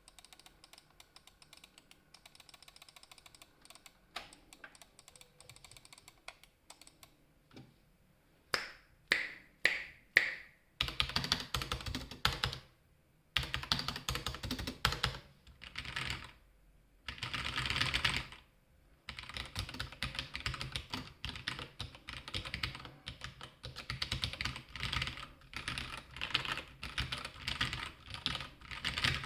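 Red Square Keyrox TKL mechanical keyboard with linear Gateron Yellow switches and stock keycaps being typed on. Faint, sparse keystrokes come first, then about four louder single key presses around nine to ten seconds in, then fast continuous typing with a few brief pauses.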